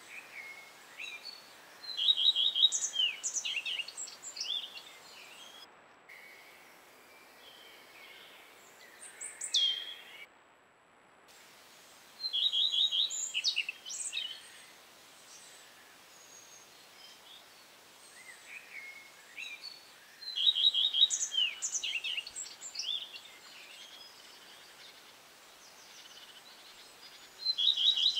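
A songbird singing a short phrase of two to three seconds, a quick run of even notes followed by higher notes, repeated four times at intervals of about eight seconds over faint outdoor hiss. A single falling whistle comes about ten seconds in, and the sound cuts out briefly twice.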